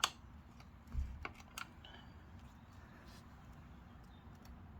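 Hand tool clicking against the chain adjuster bolt of a Yamaha MT-09 as the adjuster is backed out. A sharp click comes at the start, a dull knock about a second in, then a few lighter clicks and faint ticks.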